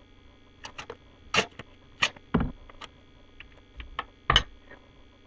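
Irregular sharp clicks and taps, about ten of them, from bicycle-horn and plumbing-fitting parts being handled and taped together.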